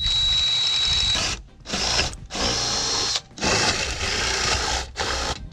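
Cordless drill running in about five bursts with short stops between, with a thin steady whine in some bursts, drilling out the hole in a light-mount bracket and drilling into fiberglass.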